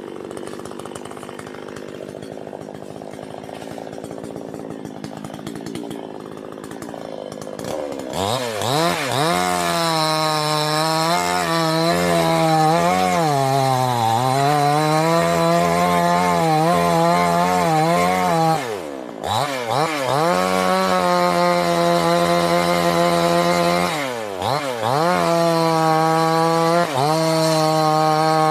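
Petrol chainsaw cutting into a tree at full throttle. Its engine note sags as the chain bites into the wood and picks back up, dropping sharply twice. The first several seconds are quieter, before the saw comes up to full cutting speed.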